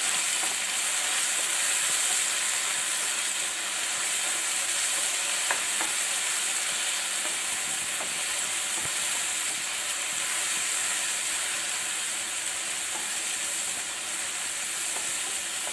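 Sliced onions and ginger-garlic paste frying in ghee and oil in a pan: a steady sizzle, with a spatula stirring and scraping through them. This is the sauté that cooks off the raw smell of the ginger-garlic paste.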